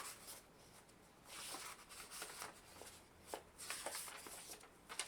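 Paper and packaging being handled, rustling in a few bursts with some light clicks and knocks.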